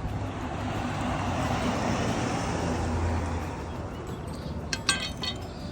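A car driving past, its road and engine noise rising to a peak and then fading away, with a few light clicks near the end.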